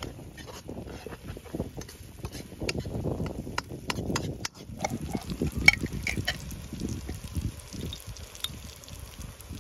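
A steel ladle stirring and scraping masala in a metal kadhai, with irregular clicks and a few ringing clinks of the ladle against the pan, the sharpest about six seconds in.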